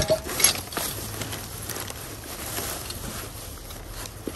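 A plastic trash bag rustling and crinkling as gloved hands rummage through the items inside, with a couple of light knocks of objects shifting near the start.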